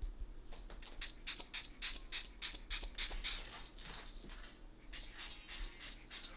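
Hand-held spray bottle spritzing along the hairline in rapid short hisses, several a second, with a brief lull about four seconds in.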